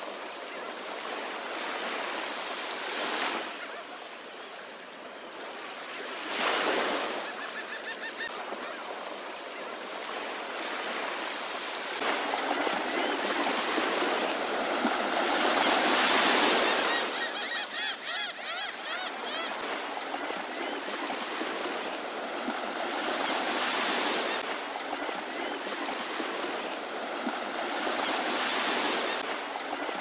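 Ocean surf washing in and drawing back, swelling louder in waves every several seconds, with a few faint gull calls about eight seconds in and again around the middle.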